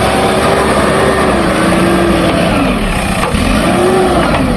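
Heavy diesel engine running under load and revving up and down, its pitch rising and falling every second or so.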